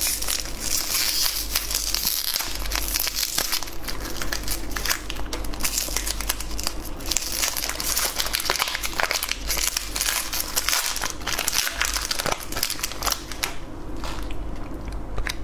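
Candy wrapper being crinkled and torn open by hand: a continuous dense crackling and rustling of wrapping, easing off a little near the end.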